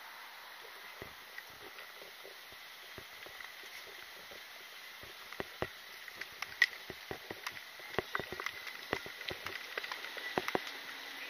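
Irregular taps and clicks of a person walking on pavement with carried gear knocking and rattling, over a steady street background. The taps start sparse and grow denser and louder about halfway through.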